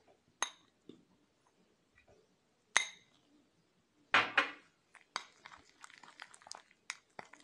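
A spoon clinks twice against a bowl, then scrapes and taps quickly as it stirs a thick paste of flour, cream and milk.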